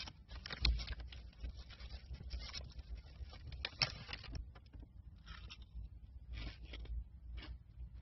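Close, irregular rustling and scraping with sharp clicks, densest in the first half and thinning to scattered bursts later, over a steady low rumble.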